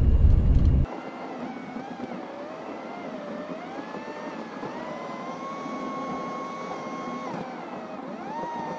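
Car engine and road noise heard from inside a car driving uphill: a thin engine note that rises in pitch, holds, and falls back, with little of the deep rumble.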